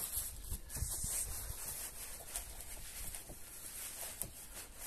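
Grey felt painter's drop cloth rubbing and rustling as it is pulled and spread over a heap of compost mix, with a few faint ticks.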